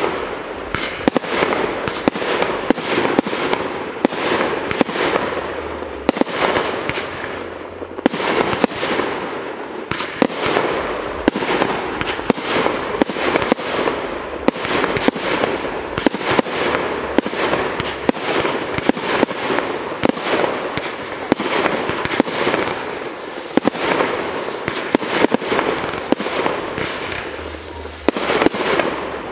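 Fireworks display: a dense, unbroken run of sharp bangs from bursting aerial shells, several a second, over a continuous crackle and hiss.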